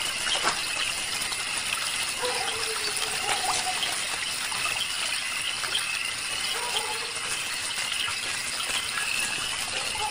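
Steady sound of running, gushing water, even throughout, with no distinct splashes.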